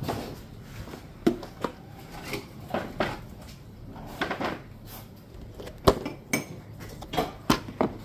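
Plastic food-storage containers, lids and other housewares clattering and knocking as they are picked up and handled on a table: a string of irregular clicks and knocks.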